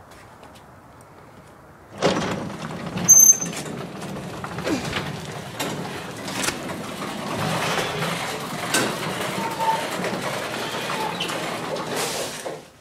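Craftsman half-horsepower garage door opener running a full door cycle: the motor starts abruptly, runs steadily with mechanical rumbling for about ten seconds, and cuts off suddenly near the end. A brief high-pitched chirp comes about a second after it starts.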